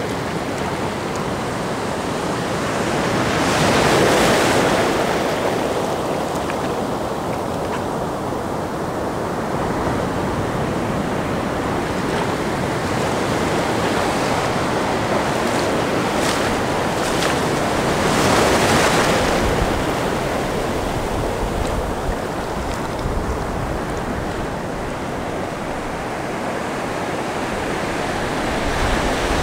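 Ocean surf breaking and washing steadily, with two louder waves surging through, one about four seconds in and another a little past the middle.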